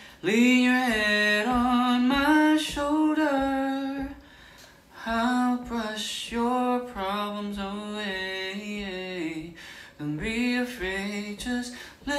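A man singing a ballad unaccompanied, holding long notes and pausing briefly twice between phrases.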